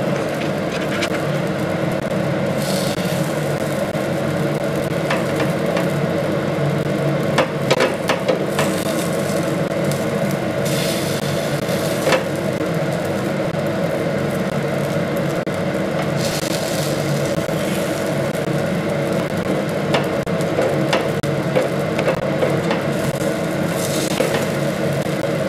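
A metal spoon clicks and scrapes against an appe (paniyaram) pan as the paddu are turned, with several short bursts of sizzle. A steady low mechanical hum runs underneath.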